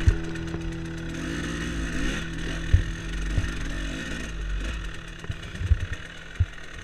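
Dirt bike engine running as it rides along a rough forest trail. Several sharp knocks come through as it hits bumps and roots.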